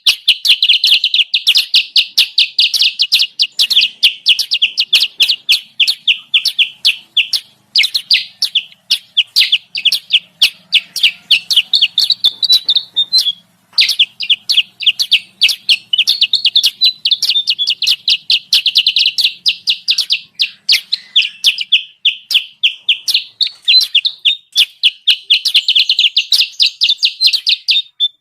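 Bird-lure recording of the kutilang sutra: loud, rapid runs of sharp repeated chirps, strung into long chattering phrases with brief breaks about eight and thirteen seconds in.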